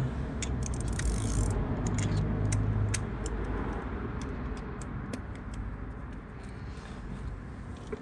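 Light metallic clicks and clinks of a hex bit and ratchet being handled and fitted together, irregular and a few a second, over a low rumble that fades after about three seconds.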